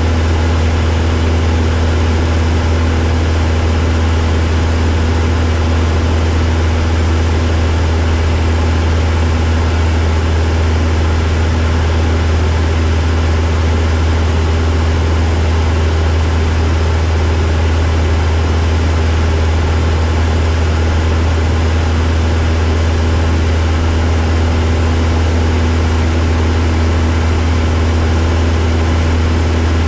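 Light propeller plane's piston engine and propeller running steadily in flight, heard inside the cockpit as a deep, even hum with a steady hiss of airflow over it.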